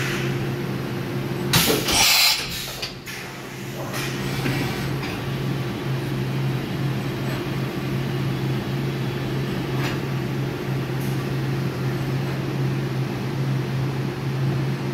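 YCM NXV 560A CNC vertical machining center running with a steady hum, with a short loud hiss about two seconds in.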